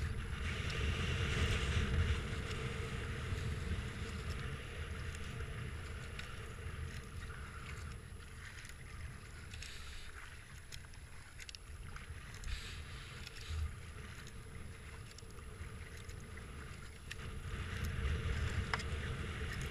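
Kayak paddling: paddle blades splashing into the river and water washing along the hull, over a low rumble of wind on the microphone. The splashing swells near the start and again near the end.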